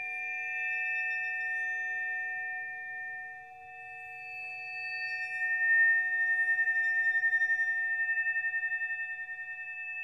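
Tibetan bells ringing in long, overlapping tones. About six seconds in the sound swells louder, then pulses quickly as it slowly fades.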